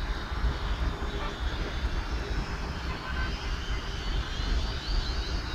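Quadcopter drone's propellers whining in flight, a thin high whine that wavers in pitch near the end, over a steady low rumble.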